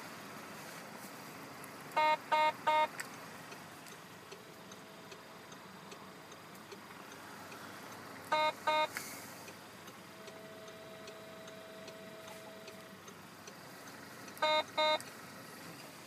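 Electronic beeps from a Lodgesons single-button bleeper control in a car: three short beeps, then two, then two more, several seconds apart, each a clear pitched tone. A faint steady hum sounds for a few seconds between the last two groups.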